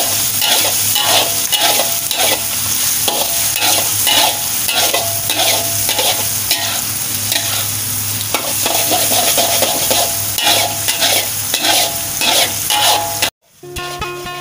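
Chopped shallots sizzling in hot oil in a steel wok, with a metal spatula scraping and clanking against the wok in repeated quick strokes, a few a second. Near the end the sound cuts off abruptly and acoustic guitar music starts.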